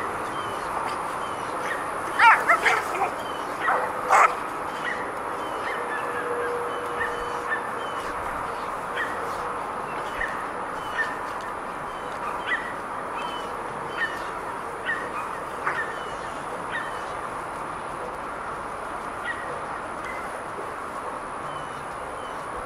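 A dog yelping a few times early on, then short high whimpers repeating about once a second over a steady background hiss.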